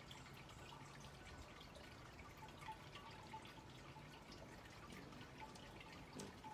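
Near silence: faint outdoor room tone with many soft, scattered ticks.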